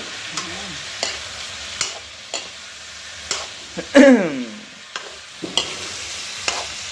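Chicken curry sizzling in a pan while it is stirred, the spoon clicking and scraping against the pan every second or so as salt is mixed in. A person's brief voice is heard about four seconds in.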